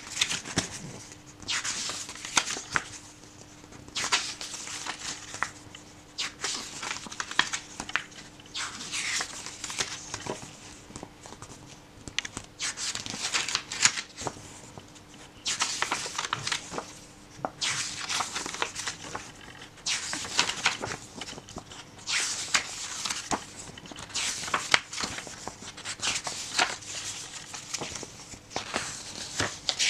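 Pages of a thin paperback picture book being turned and brushed flat by hand, a papery rustle about every two seconds.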